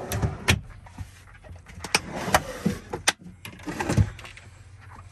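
Wooden cabinet drawers on metal slides being pulled open and pushed shut, with about half a dozen sharp knocks and clicks as they run along their slides and hit their stops.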